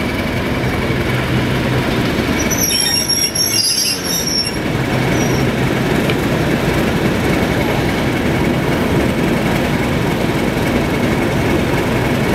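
Class 31 diesel locomotive rolling slowly into the platform and coming to a stand, its engine running steadily, with a brief high-pitched squeal from the wheels about three seconds in.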